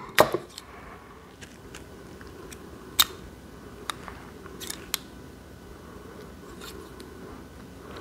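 Steel scissors snipping beading thread: a few scattered sharp clicks, the loudest at the very start and about three seconds in, over a faint steady room hum.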